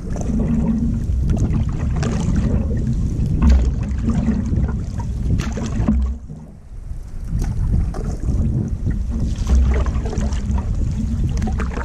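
Wind rumbling on the microphone over water lapping and splashing against a moving canoe, with a splash every second or two.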